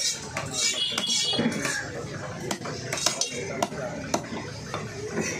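Heavy fish-cutting knife chopping grouper on a wooden log block: a run of sharp chops, about two a second in the second half. There is a metallic, ringing scrape of the blade in the first second.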